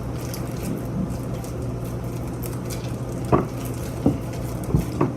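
Homemade glue slime being squished and kneaded by hand, with faint wet squelching and a few short sharp sounds in the second half, over a steady low hum.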